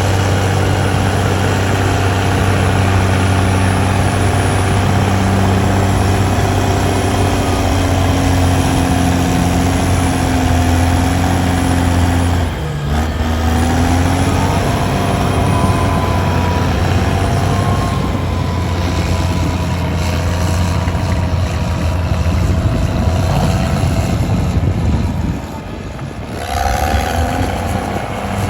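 Heavy diesel engine of earthmoving machinery running steadily, with a higher whine over the low engine hum. The sound dips briefly about twelve seconds in and drops again near the end.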